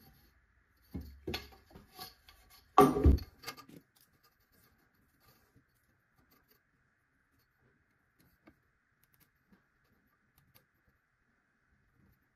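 Knocks and clatter of a wooden bar and tools being handled on a workbench, the loudest knock about three seconds in, followed by a few faint ticks.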